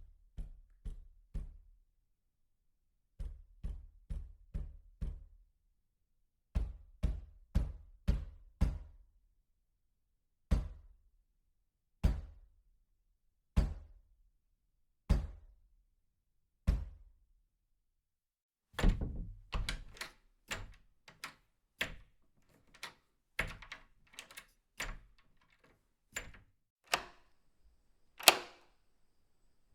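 Knocking on a door in runs: three quick knocks, then two runs of five, then single knocks about every second and a half, and near the end a faster, uneven series of knocks.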